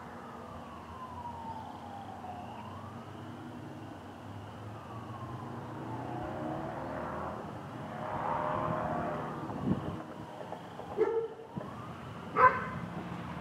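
A siren wails somewhere off in the neighbourhood, slowly rising and falling in pitch over and over. A louder rush of noise swells about eight seconds in, and two short, sharp loud sounds come near the end.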